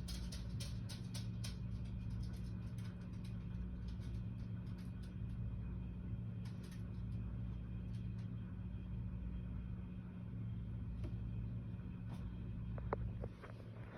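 Bath bomb fizzing as it dissolves in bath water, heard as scattered faint crackles that are denser in the first couple of seconds, over a steady low hum.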